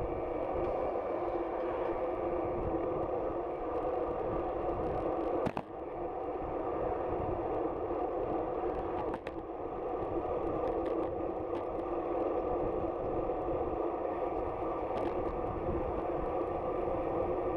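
Steady wind rush and road noise from a camera moving with a bicycle on the road, with two short clicks about five and nine seconds in.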